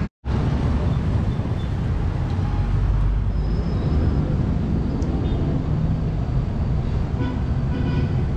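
Steady low rumbling outdoor background noise, with a brief break just after the start.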